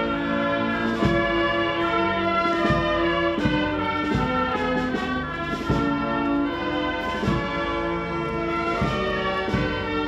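Military brass band playing a march: held brass notes over a steady drum beat that falls about every three-quarters of a second.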